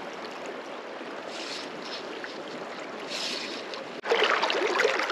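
River current running over rocks in a shallow riffle, a steady rush. About four seconds in it cuts abruptly to louder, closer water babbling and splashing.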